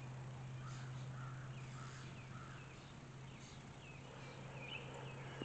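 Wild birds calling: four short calls about half a second apart, then a run of higher chirps. A steady low hum runs underneath.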